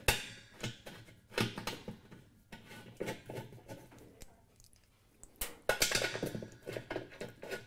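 Small metal parts clinking and tapping against the spindle hub and stainless steel wash basket of a Speed Queen washer as hardware is fitted by hand. The clicks and clanks are scattered, with a quick cluster of them about five and a half to six seconds in.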